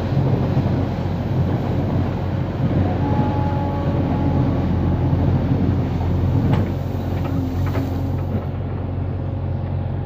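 JCB 3DX backhoe loader's diesel engine running steadily under load as the backhoe bucket digs into and lifts a pile of crushed stone, with a couple of sharp clacks of stone a little past halfway.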